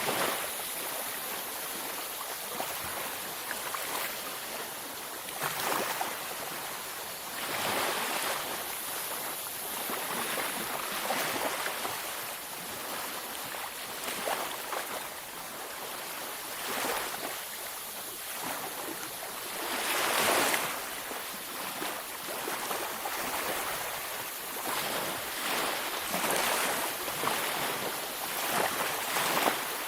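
Beach waves breaking and washing onto shore, a steady surf hiss that swells every few seconds, with one louder wave about two-thirds of the way through.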